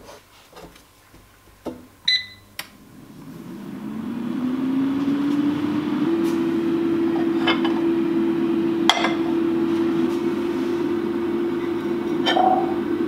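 Air fryer basket clicking into place and a short beep from the unit, then its fan motor spinning up with a rising whine that settles into a steady hum. A few sharp clicks and a clink of a cup near the end.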